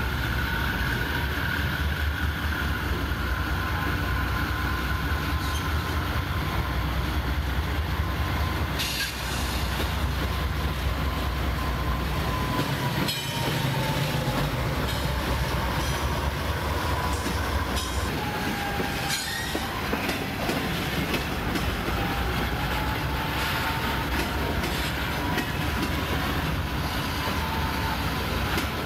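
Freight train passing close by: a low rumble of the diesel locomotives and rolling cars, with a thin wavering wheel squeal throughout and a few sharp clanks from the cars.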